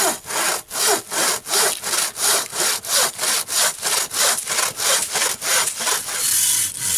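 Bow saw cutting through a log with quick, even strokes, about three a second, the blade rasping on both push and pull. Near the end the strokes run together into a steadier rasp.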